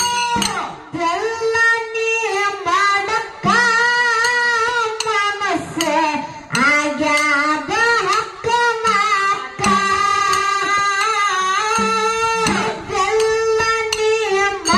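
Young female singer performing a Kannada dollina pada folk song through a microphone, in long melodic phrases that rise and fall, over a steady sustained instrumental tone.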